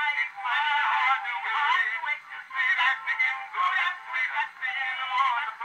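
Early acoustic recording of a baritone and tenor duet with orchestra, played from a wax cylinder on a horn phonograph. The voices and band sound thin, with almost no bass or top end.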